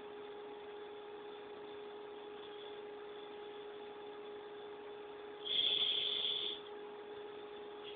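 Steady electrical hum with a constant tone. About five and a half seconds in, a louder burst of hissy noise lasts about a second.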